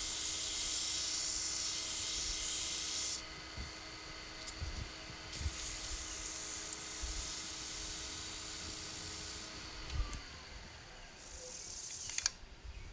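Sandpaper hissing against a wooden lid spinning on a wood lathe, loudest for the first three seconds and again briefly near the end, over the lathe's steady motor hum. The hum winds down and stops about ten seconds in as the lathe is switched off.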